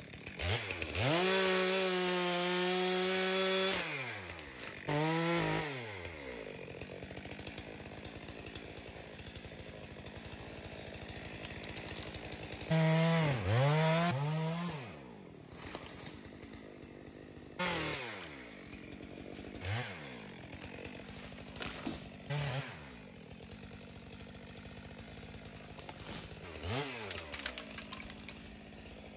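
Gas chainsaw revving to full throttle for cuts, gliding back down to idle between them. There are two longer full-speed runs, about a second in and again around the middle, and shorter blips of throttle near the end.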